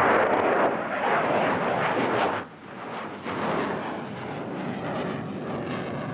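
Sukhoi Su-27's twin jet engines at high power as the fighter climbs steeply away just after take-off: a loud rushing noise that drops sharply about two and a half seconds in, then carries on fainter.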